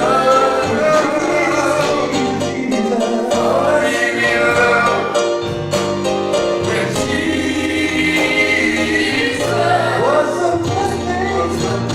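Gospel music: voices singing together over instrumental accompaniment.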